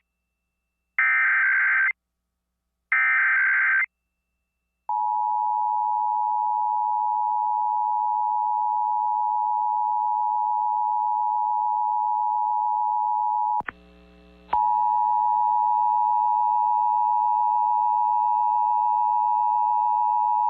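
Emergency Alert System monthly test over an FM radio stream: two harsh, buzzing SAME header data bursts, about a second each, then after a second of silence the steady two-tone EAS attention signal starts about five seconds in. The tone drops out briefly around two-thirds of the way through and then resumes.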